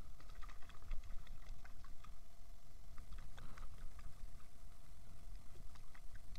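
A hooked fish splashing and thrashing at the water surface while being reeled in on a spinning rod, heard as scattered small splashes and ticks. Wind rumbles on the microphone throughout.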